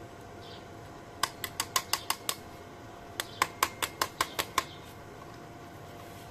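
Two quick runs of sharp taps, about seven and then about eight strikes at some five a second, a second apart, over a faint steady hum.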